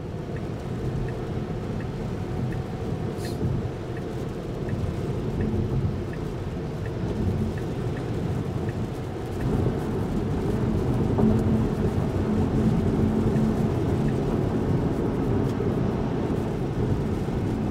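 Cabin road noise of a Tesla Model 3 at highway speed on a rain-soaked road: a steady low rumble and tyre hiss from the wet pavement, growing louder about halfway through as the car speeds up. A faint regular ticking, a bit under two ticks a second, runs through the first half.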